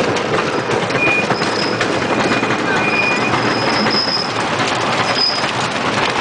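Rolling Thunder's wooden roller coaster train rolling along its track: a steady rattle of wheels on the wooden track, with several short high wheel squeals.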